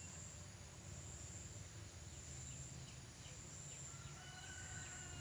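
Faint rural ambience: a steady high-pitched insect drone over a low rumble. A distant rooster crows in one long, held call near the end.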